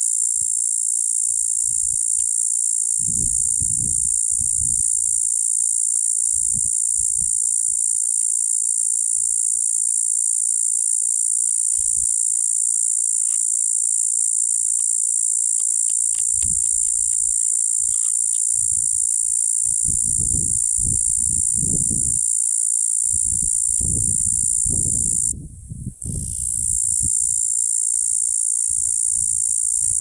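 A cicada singing a continuous high-pitched buzz that breaks off for about a second near the end, then starts again.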